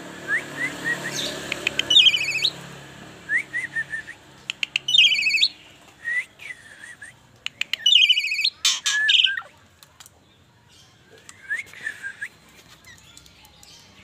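Asian pied starling singing: a varied run of short rising whistles, fast buzzy warbled trills and sharp clicks, with the loudest bursts about three seconds apart and softer notes near the end.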